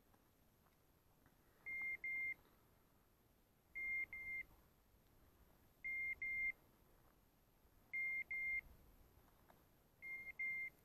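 Hunting dog's beeper collar sounding a short, high double beep about every two seconds, five pairs in all: the point-mode signal that the dog has stopped on point.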